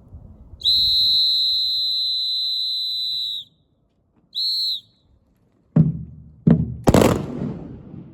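A long steady whistle blast and then a short one, followed by three gun reports of a ceremonial salute fired with blanks, about half a second apart; the third is the loudest and rings on with a long echo.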